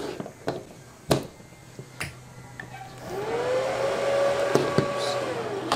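Cooling fan of a 250-amp inverter welding machine spinning up to a steady whir, then winding down near the end as the power is cut. Sharp clicks from the plug and the machine being handled come before it.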